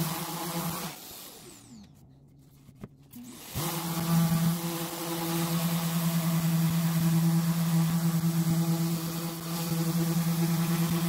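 Electric random orbital sander running on a plexiglass sheet with a steady hum. About a second in it is switched off and winds down with a falling whine. After a couple of seconds of near quiet it starts up again about three and a half seconds in and runs steadily.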